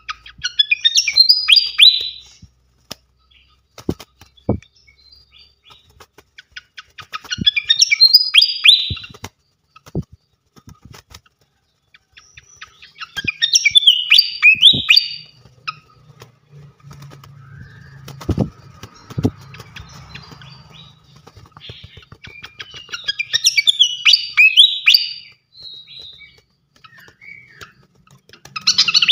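Srikatan kipas songbird singing in short bursts of rapid high chirps and twitters that repeat every several seconds. Scattered sharp clicks and a brief low hum fall between the phrases.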